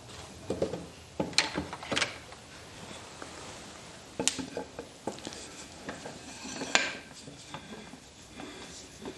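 Wooden screw and wooden nut knocking and clicking against each other in a handful of sharp knocks as the screw is tried in the freshly cut threads, which do not yet engage.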